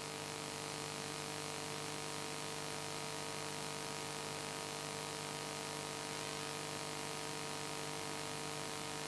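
Steady electrical hum with a constant hiss, unchanging throughout: the background hum and noise of the recording setup.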